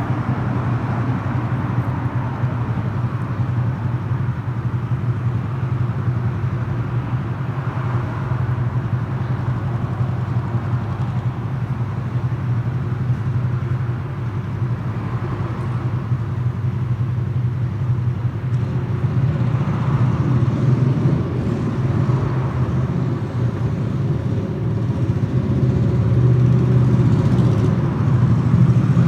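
Stihl MS 201 C-EM two-stroke chainsaw engine idling steadily while its M-Tronic electronics are read by the MDG1 diagnostic tool, getting slightly louder near the end.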